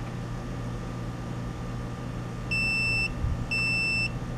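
Digital multimeter's continuity beeper, wired across the diagnostic plug of a MerCruiser MEFI-3 engine, sounding two steady high beeps about a second apart after a pause of about two and a half seconds. These are the start of the three beeps that flash out the first digit of trouble code 34.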